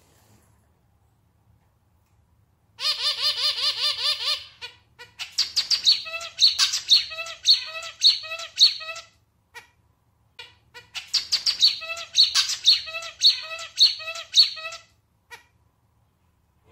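Male zebra finch singing its song, which sounds like a small, slightly out-of-tune clarinet. There are two bouts with a short pause between them, the first starting about three seconds in: a fast run of notes, then a rhythmic phrase of repeated notes.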